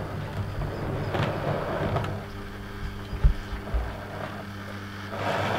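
Model train motor running with a steady low hum as a OO gauge Class 143 Pacer two-car unit crawls over pointwork, with a few sharp wheel clicks over rail joints and frogs.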